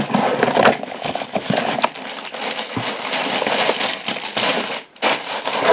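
Packaging rustling and crinkling as electronic components are handled and sorted, with small clicks and knocks of parts throughout.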